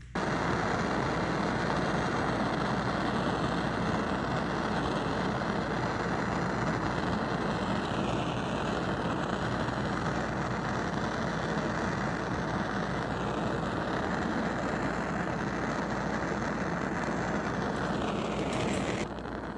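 Hand-held gas torch burning with a steady rushing noise as it heats a nickel-copper fuel line joint for soldering. It lights abruptly at the start and is shut off near the end.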